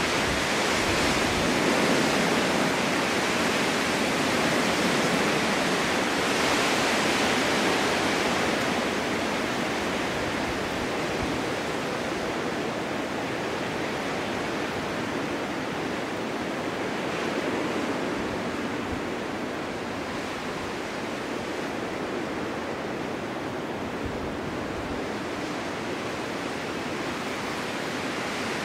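Snowstorm wind blowing, a steady rushing that swells for the first several seconds and then eases slightly.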